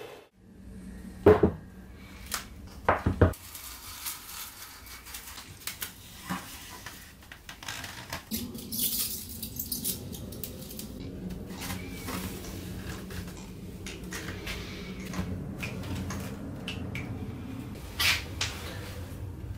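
Hand work on a workbench while a foam-and-wood model wing is assembled: a few sharp knocks and clicks as parts are handled and set down, and a short hissy rustle about nine seconds in. A heavier knock near the end comes as a metal stepper motor is set on the wing.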